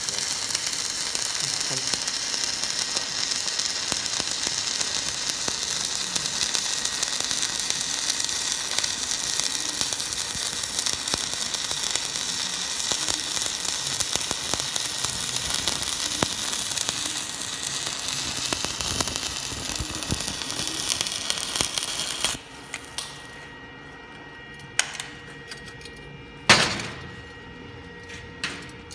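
Stick (shielded metal arc) welding arc crackling and hissing steadily as a bead is laid along steel plate, stopping abruptly about 22 seconds in when the arc is broken. Then three sharp knocks, the middle one loudest.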